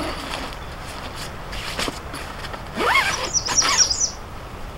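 Tent pole squeaking against the tent as it is bent and seated at the corner of a dome tent. There is a faint squeak at the start, a louder rising-then-falling squeal about three seconds in, and then a short cluster of high squeaks.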